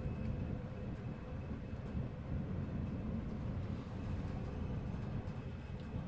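Steady low rumble of a cruise ship underway, with a faint steady machinery hum over it.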